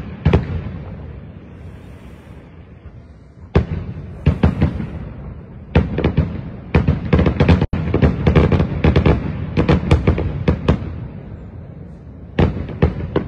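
Aerial fireworks bursting in the distance: sharp bangs that ring out and echo, a few spaced apart at first, then a dense run of rapid bangs from about six to eleven seconds in, and a few more near the end.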